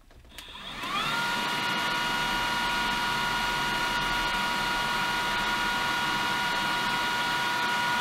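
Bosch Unlimited cordless vacuum's handheld unit switched on at its minimum suction setting. The motor spins up with a rising whine in the first second, then runs steadily with a high whine over a rush of air.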